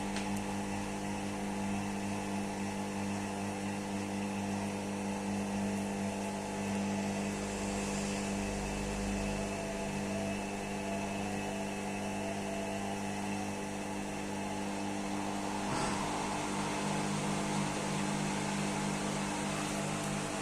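IFB front-loading washing machine in an intermediate spin, its drum and motor running with a steady hum at a constant pitch. There is one brief click about three-quarters of the way through.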